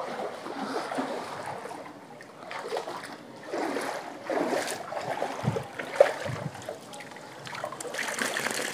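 Pond water splashing and swirling as a person wades through a shallow concrete fish pond and sweeps a hand net through it, in uneven surges with a sharp splash about six seconds in. Near the end the net is lifted out of the water full of small fish.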